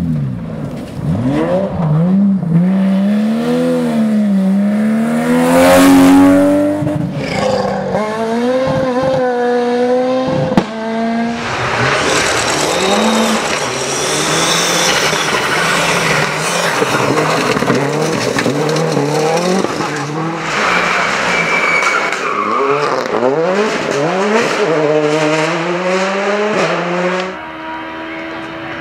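Rally cars at full throttle on loose-surface stages, engines revving hard and dropping back through quick gear changes, in several clips one after another. A single sharp crack is heard about ten and a half seconds in.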